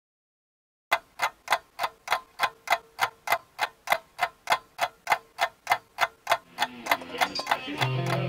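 Steady, even ticking like a clock, about three and a half ticks a second, starting about a second in. From about six seconds, music with plucked, guitar-like notes and a low held note fades in under the ticks and grows louder near the end.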